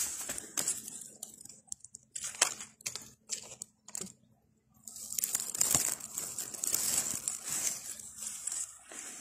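Dry grass, twigs and leaf litter crackling and rustling close to the microphone as someone moves through brush, with scattered sharp snaps. It goes almost quiet for about a second and a half just before the middle, then the crackling thickens.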